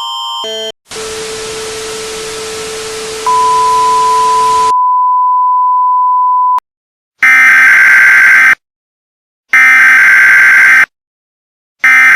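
Mock Emergency Alert System broadcast audio. It opens with the last notes of a repeating electronic chime, then static hiss over a low steady hum, and a loud steady beep tone comes in for about three seconds before cutting off sharply. Three loud, harsh buzzing bursts of about a second each follow, a second apart, like the data header that starts an EAS alert.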